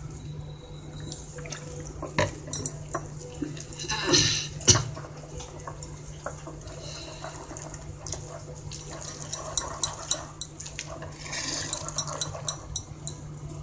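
Bare hands mixing and squishing a wet gram-flour and ground chana dal batter in a bowl as water is added, giving many small irregular wet clicks and squelches. A steady low hum runs underneath.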